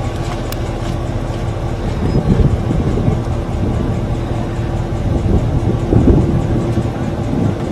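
Low roar of strong storm wind buffeting the microphone, swelling in stronger gusts about two and six seconds in, over a faint steady hum.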